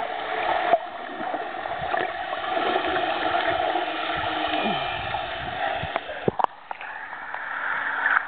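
Muffled underwater water noise from swimmers' strokes, heard through a submerged camera. About six and a half seconds in it breaks the surface, and open-air splashing and lapping water take over.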